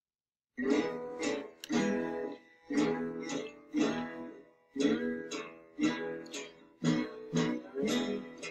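Acoustic guitar strumming a rhythmic instrumental intro to a song, starting suddenly about half a second in.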